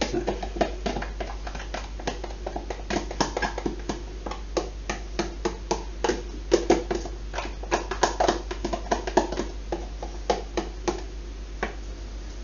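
Irregular taps, clicks and scrapes of a clear plastic tub handled over a glass mixing bowl as softened butter is scraped out into the dough.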